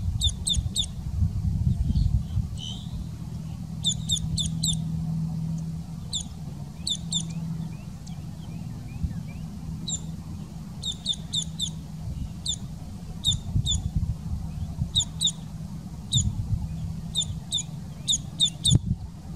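Boat-tailed grackle calling: quick runs of three or four sharp, high notes, one run every second or two. A low rumble runs underneath.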